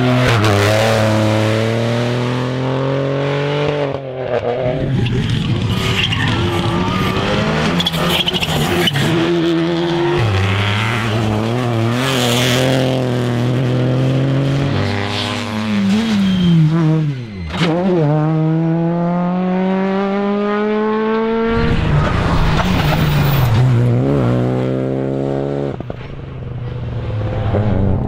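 Rally cars driven flat out on a tarmac stage, one after another. Engines rev hard and climb in pitch, dropping back at each gear change, with a sharp lift and pick-up partway through and some tyre squeal.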